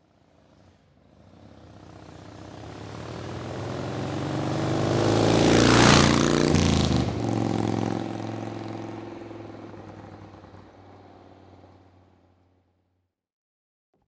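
A motor vehicle driving past: it approaches from silence, is loudest about six seconds in as it passes, its engine note dropping in pitch as it goes by, then fades away.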